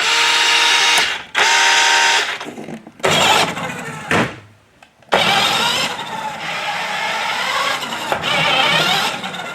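Remote-control toy car driving. First two short bursts of a steady buzzy tone about a second each, then a longer stretch of noisy whirring.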